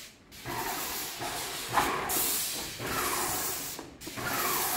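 Airless paint sprayer gun spraying primer onto drywall: a steady hiss from the spray tip that starts just after the beginning and breaks off briefly just before four seconds, as the trigger is let go and pulled again.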